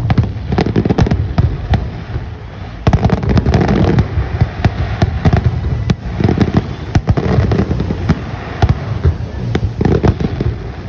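Aerial fireworks shells bursting one after another in quick succession. Low booms overlap with many sharp cracks and crackling, loud throughout.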